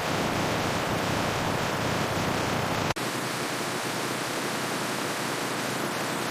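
Steady rushing noise with no clear tone or rhythm. About three seconds in it breaks off for an instant and carries on without the deep rumble beneath it.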